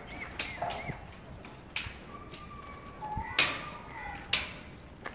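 Goat kids' hooves clattering on concrete: a handful of sharp, irregular clacks, the loudest about three and a half seconds in, with faint high calls between them.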